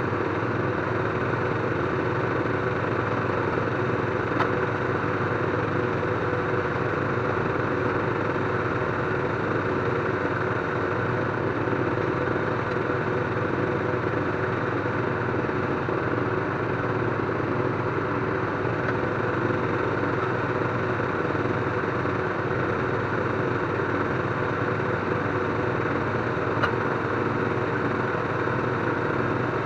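An engine running steadily at an even speed, with a couple of brief sharp clicks.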